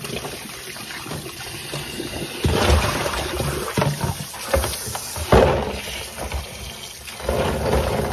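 Kitchen tap running into a plastic basin while chestnuts are swirled and rubbed by hand in the water, with loud surges of splashing and sloshing as the basin is tipped and water pours out. There is a sharp knock about five seconds in.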